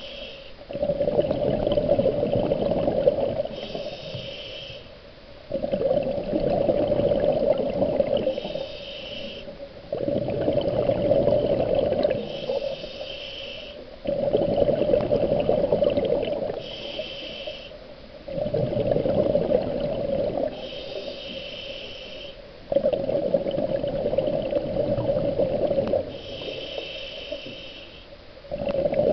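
Scuba diver breathing through a regulator underwater: a short hiss on each inhale, then a longer burble of exhaled bubbles, repeating about every four seconds.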